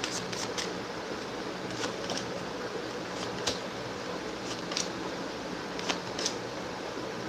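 Quiet room tone: a steady low hum with a few faint, scattered light clicks or taps.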